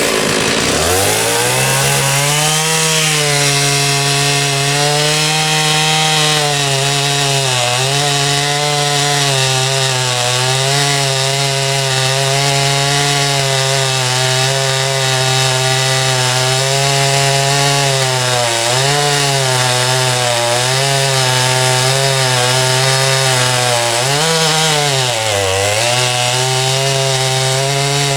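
MS 660-clone two-stroke chainsaw with a 36-inch bullnose bar, revving up about a second in and then cutting through a large log at full throttle. Its pitch sags briefly under load a few times, most deeply near the end, and recovers each time.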